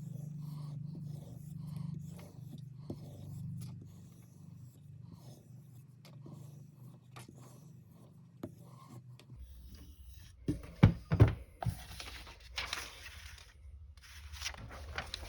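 Faint handling sounds, then two sharp knocks about two-thirds of the way in, followed by bursts of scraping and rubbing.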